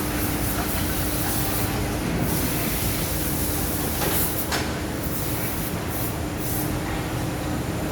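Machinery running steadily: an even mechanical noise with a constant hum, and a couple of brief clicks about four seconds in.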